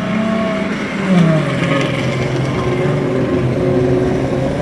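Engines of old trucks racing on a dirt autocross track, running under load. A little past a second in, the engine note drops in pitch, then runs steady.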